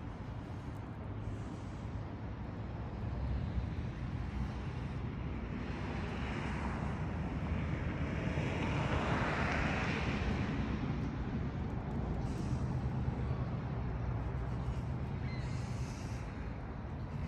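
Steady background rumble and hiss with a low hum. A wash of noise swells about halfway through and fades again a few seconds later.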